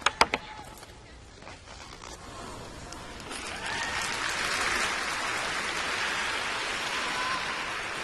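Arena audience applauding: a few sharp single claps at first, a lull of scattered clapping, then applause and cheering swelling again about three seconds in, with a couple of short shouts or whistles from the crowd.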